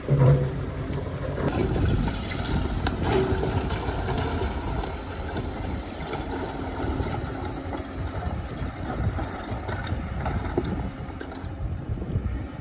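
Excavator working rock: its diesel engine runs steadily under load, with scattered knocks and scraping of rock against the bucket.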